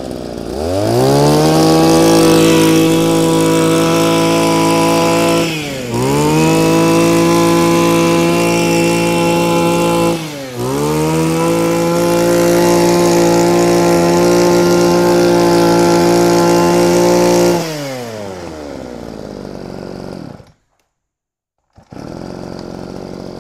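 Echo SRE2350 23cc two-stroke brush cutter engine revved to full throttle and held there, with two brief throttle dips about 6 and 10 seconds in. It then drops back to idle near the end, cuts out for about a second, and resumes idling.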